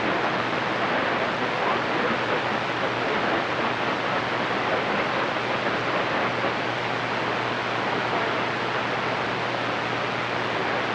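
CB radio receiver static on channel 28: a steady, even hiss of band noise between transmissions, with a faint steady low hum beneath.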